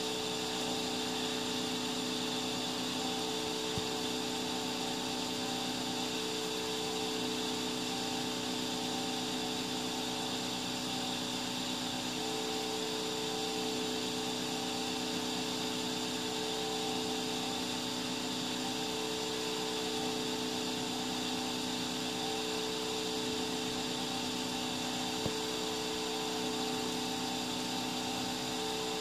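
3D printer running while its hot end extrudes filament freely into the air: a steady mechanical whir with several steady hum tones, one of which comes and goes every couple of seconds.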